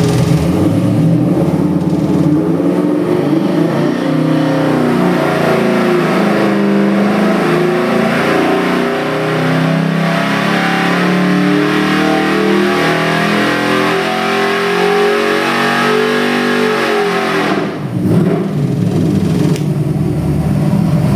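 Ford 427 Windsor stroker V8 on an engine dyno: it idles, is opened up for a full-load RPM sweep pull, rising in pitch for about sixteen seconds, then the throttle closes near the end and it drops back to a fast idle.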